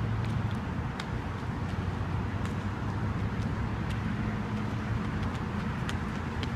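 Steady low hum of outdoor background noise with a few faint, scattered clicks.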